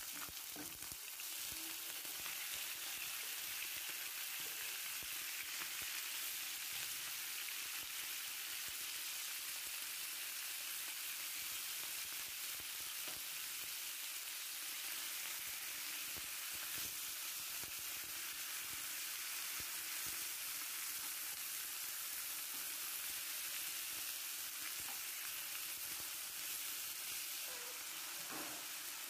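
Raw chicken breast strips frying in hot vegetable oil in a non-stick pan: a steady sizzle.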